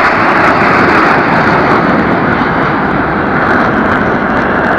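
Military jet aircraft flying overhead: a loud, steady engine roar that eases slightly near the end.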